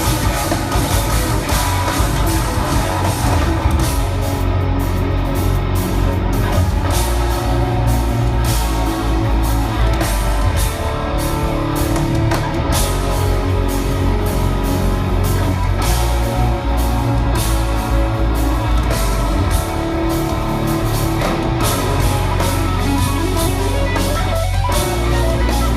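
Progressive metal band playing live: loud distorted electric guitars over a busy drum kit, heard as a recording of a concert.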